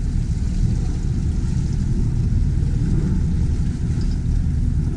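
Boat's outboard motor running steadily at low speed, a constant low drone with no change in pace.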